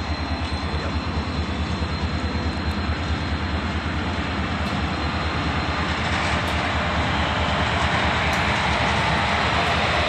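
Indian Railways WAG-7 electric locomotive hauling passenger coaches past on the track, a steady dense mechanical rushing noise that grows louder over the second half as the locomotive draws level.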